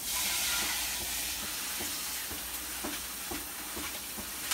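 Pot of water heating on a red-hot electric coil burner, hissing steadily with faint ticks and pops about twice a second.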